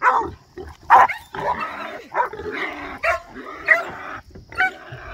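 Hog-hunting dogs barking and yipping in short, sharp calls, two loud ones in the first second and several smaller ones after, as they hold a small boar hog.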